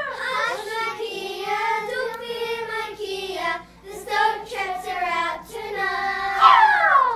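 A group of young children singing together, their voices holding and gliding between notes, with a high note sliding down near the end.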